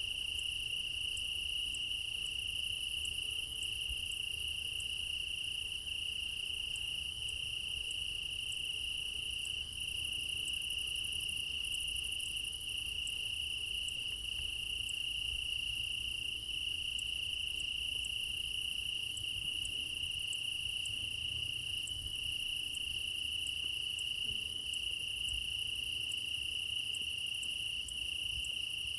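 Crickets chirping at night: one steady, unbroken high trill, with fainter, higher pulsing chirps from other crickets and a faint low rumble beneath.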